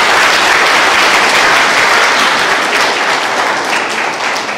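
Church congregation applauding, a dense round of clapping that dies away over the last second or two, leaving scattered single claps.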